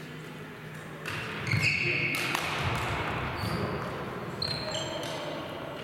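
Badminton play on a wooden sports-hall floor: shuttlecock hits and players' footfalls, with several short high squeaks of sports shoes on the floor, starting about a second in.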